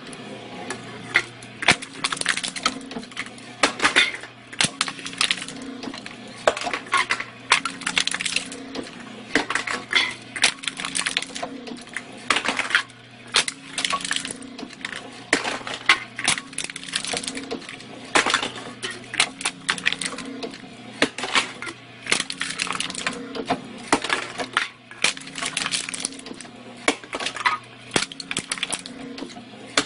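Motor-driven crank can crusher running: a steady motor hum that pulses in a regular cycle as the ram shuttles back and forth, with rattling metal clanks and the crunch of an aluminium drink can being crushed in the steel trough.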